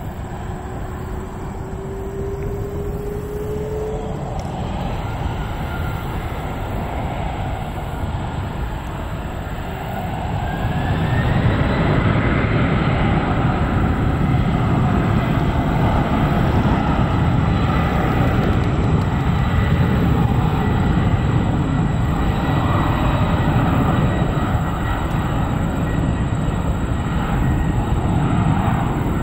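Jet airliner engines running with a deep rumble and a whine that rises in pitch. About ten seconds in, the engines get louder and the whine climbs higher, then holds steady.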